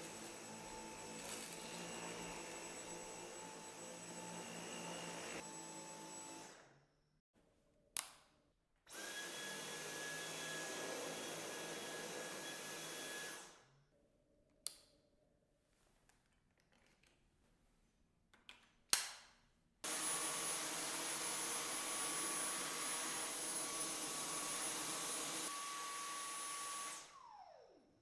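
Dyson Cyclone V10 cordless stick vacuum's motor running in three separate bursts, each starting and stopping abruptly, each louder than the last and with its own steady whine, as it is switched through its power modes. Sharp clicks from the machine's controls come between the runs, and the final run winds down near the end with a falling whine.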